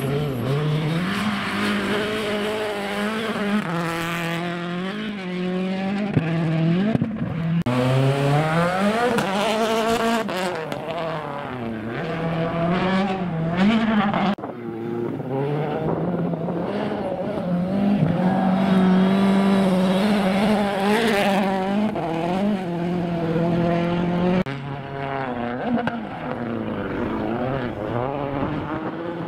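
Citroën C4 WRC rally car's turbocharged four-cylinder engine driven hard, its pitch climbing and then dropping sharply again and again as it shifts gears and lifts for corners. The sound breaks off abruptly three times and picks up again on another pass.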